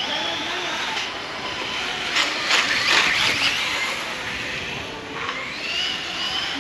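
Electric whine of a Losi Promoto-MX RC motorbike's brushless motor, rising and falling in pitch as it accelerates and slows around the cones. A louder rasping burst comes about two seconds in, as the slick tyres scrub on the asphalt.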